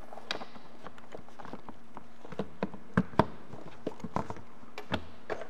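A KTM 690 Enduro's stock plastic airbox being worked loose from the frame by hand: a scatter of light clicks and knocks of hard plastic, the two loudest about three seconds in.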